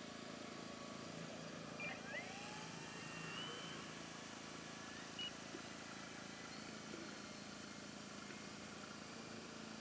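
Faint, steady whine of an electric RC plane's motor flying at a distance, over an outdoor hiss. A few short chirps come about two seconds in and one more around five seconds.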